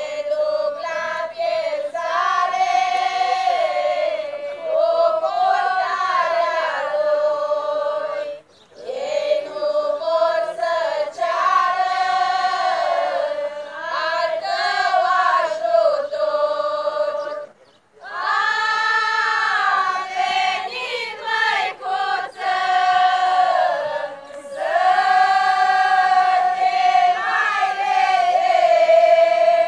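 A large group of women singing unaccompanied in unison, a Romanian folk religious song addressed to the Virgin Mary, in long phrases with brief breaths between them.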